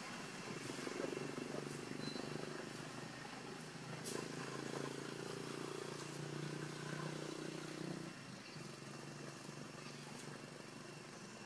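A motor engine droning steadily, fading out about eight seconds in, with one sharp click about four seconds in.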